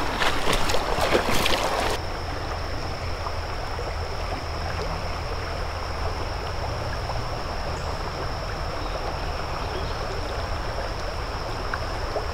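Creek water running steadily, with louder splashing during the first couple of seconds as legs wade through the water.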